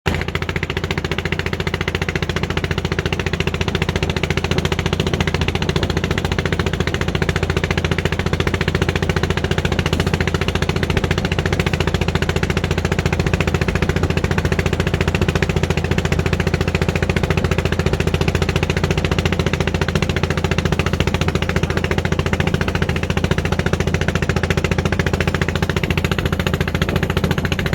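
Small engine running at a steady speed with a rapid, even firing beat and a deep hum, heard by someone travelling with it.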